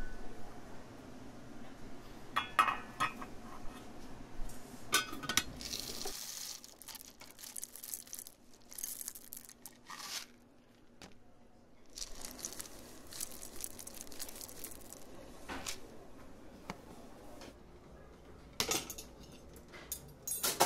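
Metal dishes and cutlery clinking and knocking in a kitchen, with a few stretches of hissing noise between the clinks.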